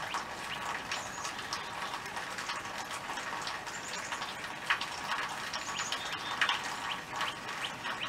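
Many short high chirps, scattered irregularly, over a steady background hiss, with one sharp tick about halfway through.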